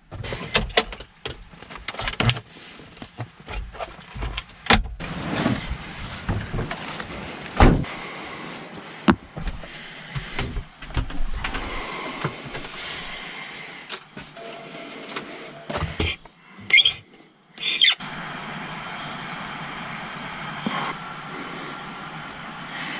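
Rustling, clicks and knocks of clothing and objects being handled, with the camera itself moved about. About eighteen seconds in these give way to a steady hiss.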